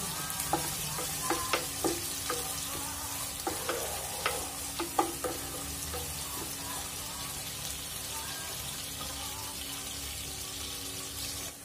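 Sliced onions sizzling in hot oil in an aluminium pressure cooker, frying until lightly browned. A wooden spoon stirs and knocks against the pot with sharp clicks in the first half, then the sizzle carries on alone.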